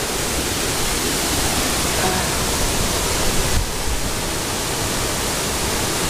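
Waterfall pouring into a rocky plunge pool: a steady, even rush of falling water.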